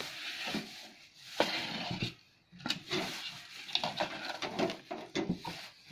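Clear plastic wrapping crinkling and rustling as it is pulled off a stove's metal burner parts in a cardboard box, with irregular light knocks and taps from handling. The sound pauses briefly a little past two seconds in, then picks up again.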